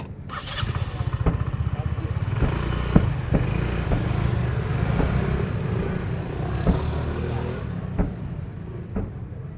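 Fireworks going off in a dense barrage: a continuous rumble of rapid bursts with several louder bangs on top, thinning out after about eight seconds to a few single bangs.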